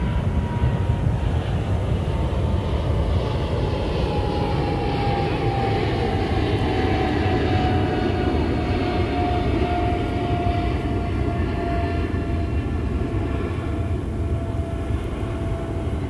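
Jet plane passing overhead: a steady engine rumble under a high whine that slowly falls in pitch as it goes by.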